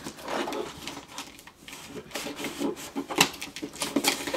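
Cardboard box being opened by hand: packing tape pulled off and cardboard scraping and rustling, with several sharp clicks and knocks, the loudest a little after three seconds in.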